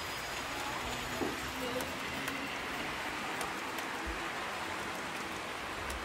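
Model railway train, an electric locomotive hauling passenger coaches, rolling along the track with a steady rushing hiss and a few light clicks.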